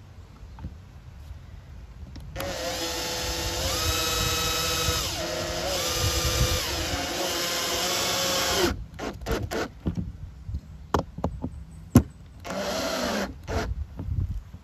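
Cordless drill driving screws through a metal jar lid into a wooden block: the motor whines for about six seconds, its pitch stepping up and down with the trigger, then stops. Scattered sharp clicks follow, one much louder than the rest, and the drill runs again briefly near the end.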